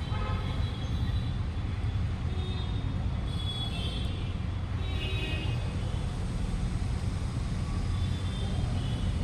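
Steady low rumble of background noise, with a few faint high-pitched squeaks or chirps around the middle.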